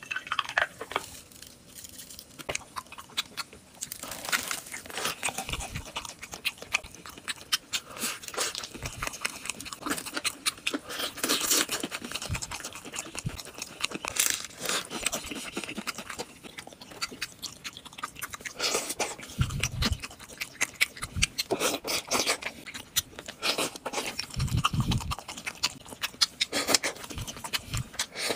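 Crunchy food being chewed: a run of rapid, irregular crackling bites, with a couple of short low thumps in the second half.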